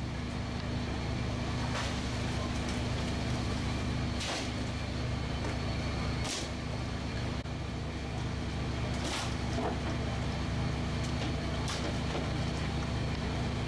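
Steady low mechanical hum of the party boat's machinery running while it sits at the dock. Every two or three seconds a short hissing swish cuts through it, about five times.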